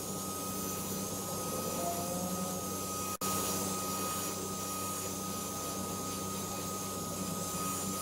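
120 W handheld car vacuum cleaner running steadily as it sucks crumbs off a fabric car seat, a high steady whine over its motor hum, with a brief break about three seconds in.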